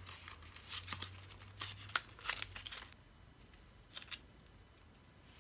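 Small plastic packet crinkling and rustling as an enamel pin is taken out of it, over the first three seconds or so, then a couple of short faint ticks about four seconds in.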